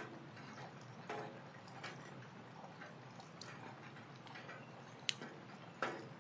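Rainwater dripping during a thunderstorm: irregular sharp drops landing over a faint hiss, with a few louder drops about a second in and again near the end.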